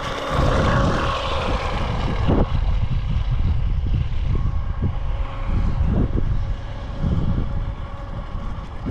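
WLtoys WL915-A RC jet boat's brushless motor whining steadily as it runs on the water, swelling briefly in the first couple of seconds.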